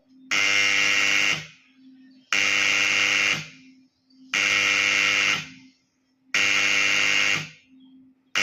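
Electric school bell ringing in repeated bursts of about a second each, one every two seconds, four full rings with a fifth starting at the very end. A faint low hum sounds in the gaps between rings.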